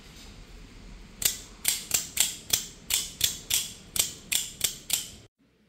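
Böker Kalashnikov out-the-front automatic knife being cycled: the double-action blade repeatedly fires out of the front of the handle and snaps back, giving about a dozen sharp metallic clicks in quick succession, roughly three a second. They start about a second in, after some quiet handling noise, and stop abruptly.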